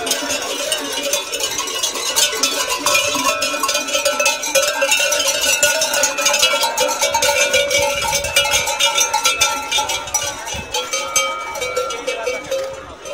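Many cowbells clanking and ringing together as a herd of cattle walks past, getting quieter near the end as the animals move away.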